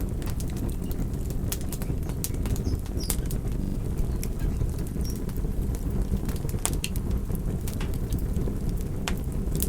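Wood fire burning: a steady low rush of fluttering flames with irregular sharp crackles and pops, several a second.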